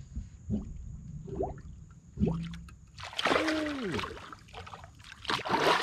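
Hooked catfish thrashing at the surface beside the boat: a loud splash about three seconds in and another near the end, after a few soft knocks.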